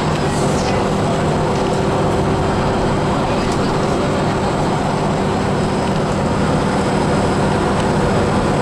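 Inside a moving bus: the engine's steady drone mixed with tyre and road noise, running evenly at cruising speed.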